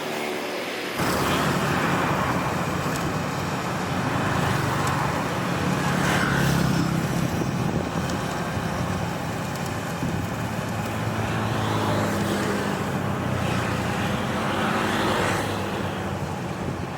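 An engine running steadily; it gets suddenly louder about a second in, and a rushing hiss swells up now and then.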